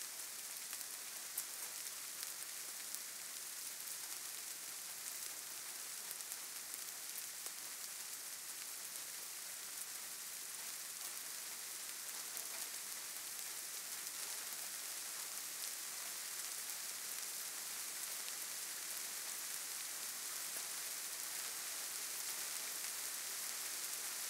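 Steady soft hiss with a few faint scattered ticks, growing slightly louder toward the end.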